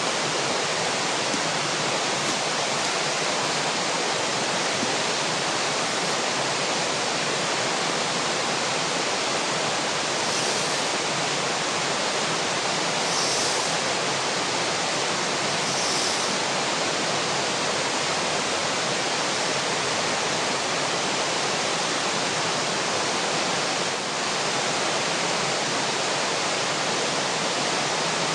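Steady rush of river water running over rapids. About ten seconds in, three faint short high-pitched sounds come a few seconds apart.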